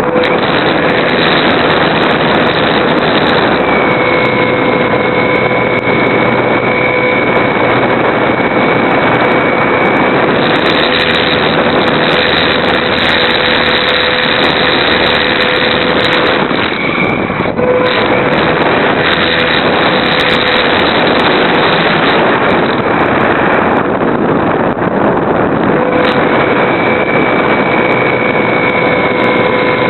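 A radio-controlled Super Cub model airplane's motor and propeller running, heard from a camera mounted on the plane, with heavy wind rush over the microphone. The motor's steady whine fades out for several seconds twice and comes back near the end.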